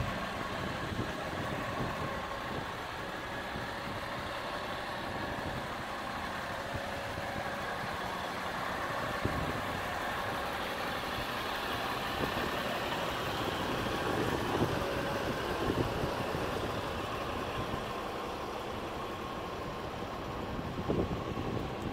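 A truck's diesel engine idling steadily, with a few light knocks along the way.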